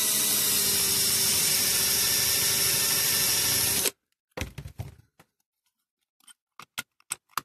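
Small electric drill running steadily under load on a stubborn part of a diecast toy, then switched off abruptly about four seconds in. A few light clicks and knocks follow.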